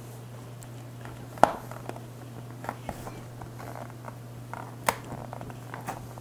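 Hands fastening the inner diffuser cloth into a Godox softbox's corners: scattered light clicks and taps of the fittings and fabric, with two sharper clicks about a second and a half and five seconds in. A steady low hum runs underneath.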